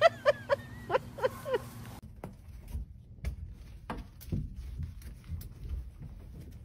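A puppy yapping: a quick run of about six short, high yips in the first two seconds, followed by faint knocks and rustling.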